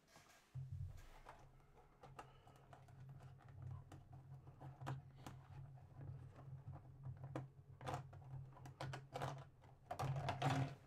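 Small, irregular plastic clicks and rustles as a tiny accessory pistol is worked free from a collectible figure's packaging, with a steady low hum beneath. The clicks come thicker near the end.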